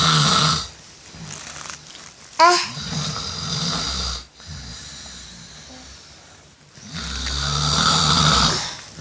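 A person snoring in deep sleep: two long rumbling snores about seven seconds apart, with a brief squeaky whistle and a softer breath out in between.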